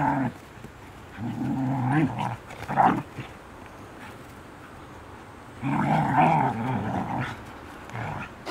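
Dogs growling as they wrestle in rough play. The growls come in two long bouts, one about a second in and one past the middle, with short grumbles between them.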